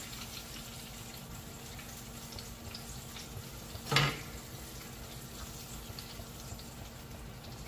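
Butter sizzling steadily in frying pans where a split lobster tail and an ear of corn are cooking, with one brief louder sound about four seconds in.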